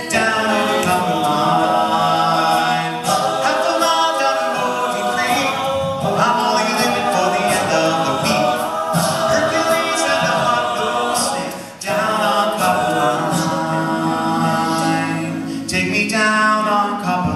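All-male a cappella group singing held chords in phrases a few seconds long, with a short break about twelve seconds in.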